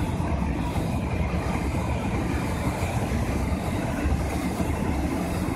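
Container freight train wagons rolling past close by, with a steady rumble of steel wheels on rail.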